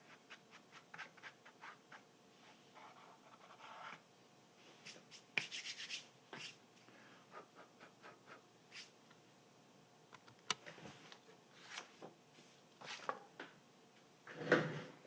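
Hands and small tools working on a speaker during a foam-surround repair: scattered light clicks and taps mixed with short rubbing and scratching sounds. The longest and loudest scrape comes near the end.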